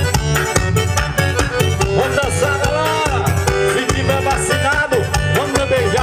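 Forró pé de serra music: accordion-led band playing over a steady drum beat.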